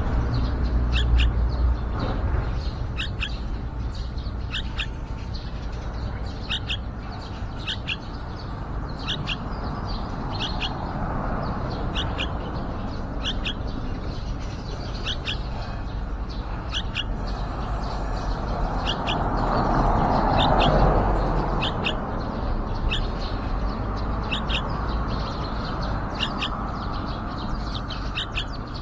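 Yellow-vented bulbul giving short, high chirps over and over, about one a second. A low background rumble runs beneath and swells about two-thirds of the way through.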